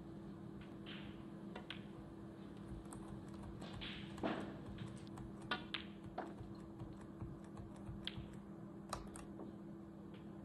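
A few sharp clicks at irregular times, some in quick pairs and clusters, over a steady low hum.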